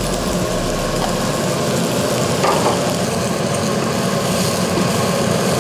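Bacon and baby bella mushrooms sizzling in a hot frying pan as they are tossed with tongs, over a steady fan hum.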